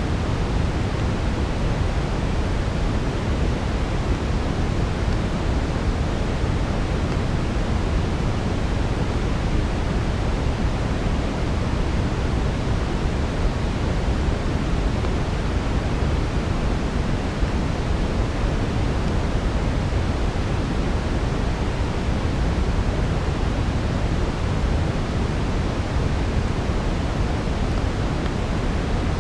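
Steady brown noise: an even, deep rushing hiss weighted toward the low end, unchanging throughout.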